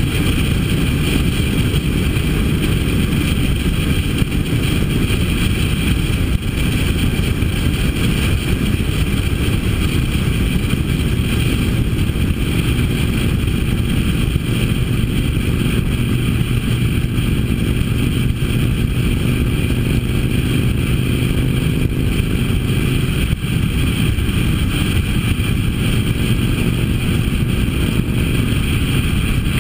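Harley-Davidson V-twin motorcycle engine running steadily at cruising speed, with a small shift in engine pitch about twenty seconds in.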